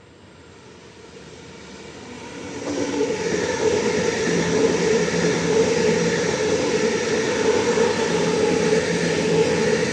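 Electric suburban train approaching and running along the platform. Its rumble builds over about three seconds and then stays loud and steady.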